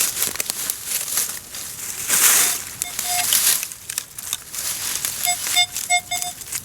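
Digging in forest soil, with twigs and roots crackling and scraping, and a loud scraping rush about two seconds in. From about three seconds in, a metal detector gives short repeated beeps on a target in the hole.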